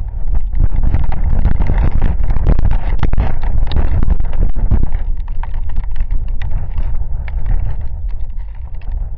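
Wind gusting against the microphone in a rainstorm, a loud low rumble that swells about half a second in and eases slowly over the second half, with raindrops ticking sharply close to the microphone throughout.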